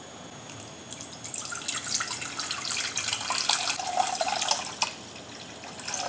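Water poured in a stream from a jug into a bowl, splashing into the water already in it, with a brief dip in the flow about five seconds in.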